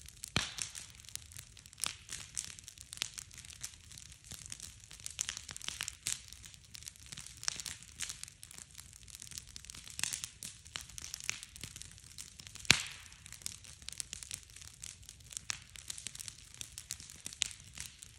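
Bonfire of stacked wood crackling and popping irregularly as it burns, with one sharp, loud pop about two-thirds of the way through.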